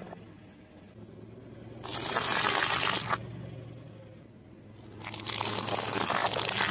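Car tyre rolling over and crushing things on concrete: a crumpling, crunching burst about two seconds in that lasts a little over a second, then a longer crunching run from about five seconds in. A steady low hum sits under it throughout.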